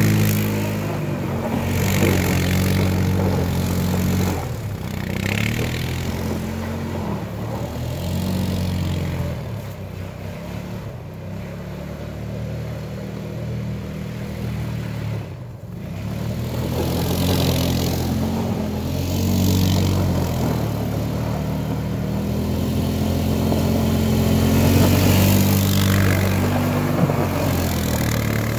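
Honda four-wheeler's engine revving up and falling back again and again as it drifts, with a hiss of dirt from the sliding, spinning tyres. It fades as the quad moves off into the distance in the middle, then grows louder as it comes back near.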